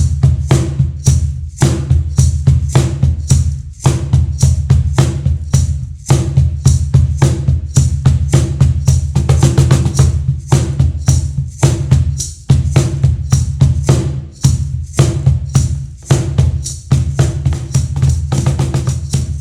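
Meinl cajon played by hand in a fast, continuous groove: deep bass strokes mixed with sharp, higher slaps, several strikes a second.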